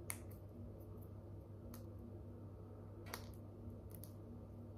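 Faint crinkles and ticks of a small strip of thin paper being folded by hand into a joint's filter tip: about four short crackles spread through, over a steady low hum.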